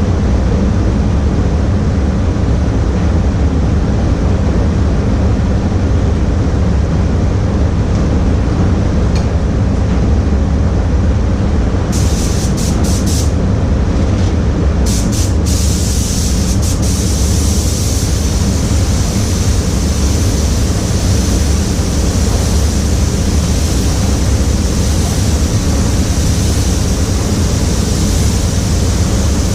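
A steady low machine rumble throughout. About twelve seconds in, a paint spray gun starts hissing in a few short bursts, then sprays continuously, laying on the pearl coat.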